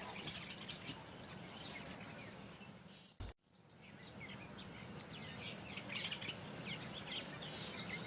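Forest ambience with many birds chirping over a low steady hum. The sound cuts out for a moment about three seconds in, then returns with busier chirping.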